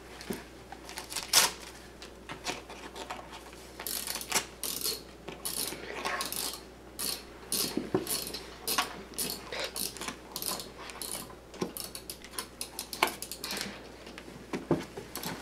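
A child's fingers scratching, tapping and picking at a paper-wrapped cardboard gift box, still held shut by tape: a run of irregular small scratches and clicks.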